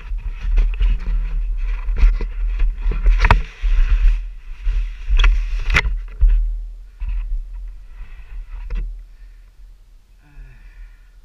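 Helmet-mounted camera tumbling and sliding across a dirt track in a motocross crash: repeated thuds and gravel scraping against the helmet over a heavy low rumble. The scraping dies down after about seven seconds into quieter scuffs as the rider comes to rest.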